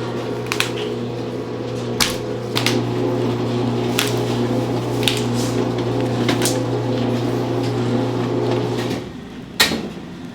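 A steady electric machine hum that shifts slightly about two and a half seconds in and stops about nine seconds in, with scattered light clicks and knocks of kitchen work.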